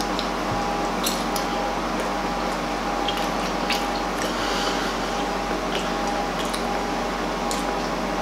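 A person chewing a mouthful of pancake: scattered soft, wet mouth clicks and smacks over a steady background hiss with a faint hum.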